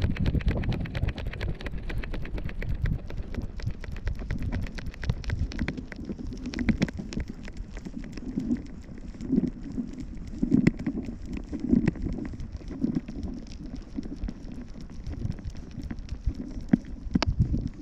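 Wind rumbling on the microphone of a 360 camera carried on a walking dog's harness, with handling noise from the jostling mount: a dense run of small clicks and taps in the first several seconds, then scattered dull thumps.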